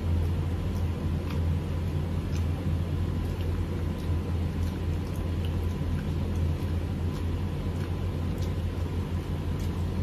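A steady low hum throughout, with faint scattered clicks and taps of people eating by hand from plates.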